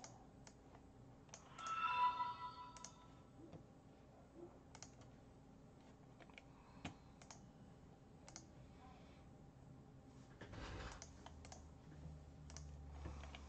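Faint, scattered clicks of a computer keyboard and mouse being worked. About two seconds in, a short pitched tone sounds.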